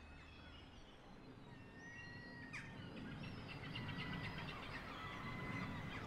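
Faint outdoor ambience: small birds chirping and twittering over a low, steady background noise.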